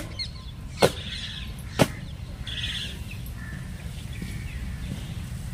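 Three sharp knocks about a second apart in the first two seconds, with small birds chirping in short bursts between and after them.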